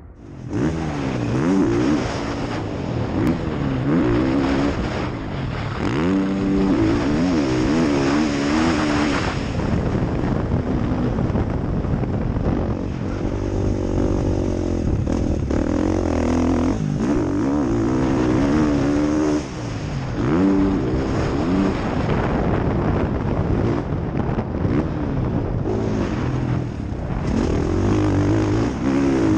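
Husqvarna motocross bike's engine revving hard and dropping off again and again as the rider accelerates, shifts and backs off the throttle around a dirt track.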